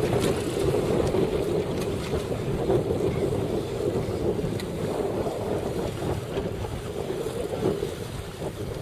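Wind buffeting the microphone out on open water, with a steady low hum and some water noise underneath.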